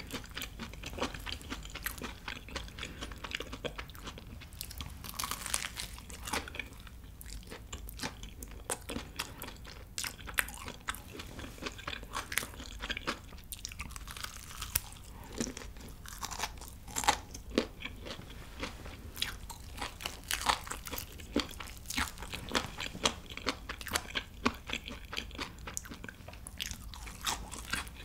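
Crunching and chewing of a crispy fried chicken drumstick close to the microphone: many sharp, irregular crunches of the battered skin as it is bitten and chewed.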